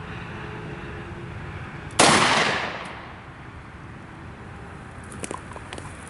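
A single shot from a .40 caliber SIG pistol about two seconds in: one sharp crack that echoes away over about a second.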